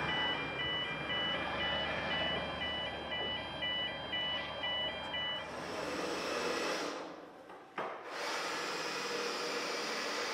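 Railway level crossing's electronic warning alarm sounding a rapid alternating two-tone beep over the fading engine rumble of a departing narrow-gauge diesel locomotive. The alarm stops about five seconds in, and after a brief dip a steady workshop hum follows.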